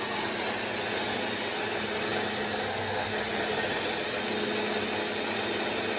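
Philco PMX600 stick blender's motor running steadily on its mini chopper bowl, spinning the blade through garlic and onion pieces. It makes an even, unchanging whir with a low hum.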